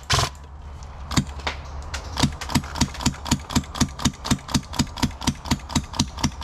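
An airsoft gun firing rapid single shots, a few spaced out at first, then a steady string of about four sharp cracks a second.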